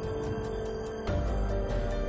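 Background music: sustained held notes over a fast, regular ticking beat, with a deep bass hit about halfway through.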